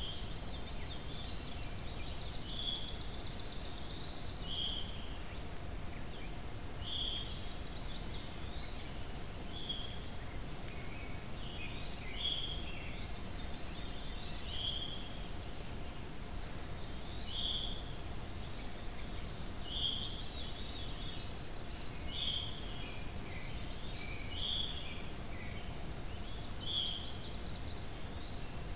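Woodland songbirds singing short, high phrases repeated every two seconds or so, over a steady low hiss and a faint steady hum.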